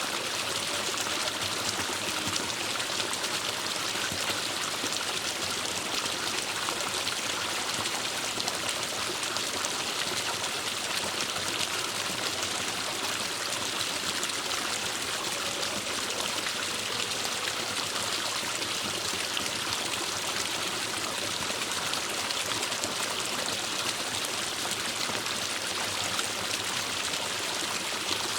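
Forest stream flowing steadily over rocks, an even rushing and trickling of water.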